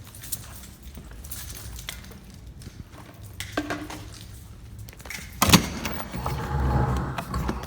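Light clinking and handling noises, then one sharp loud bang about five and a half seconds in, followed by a couple of seconds of rumbling and shuffling.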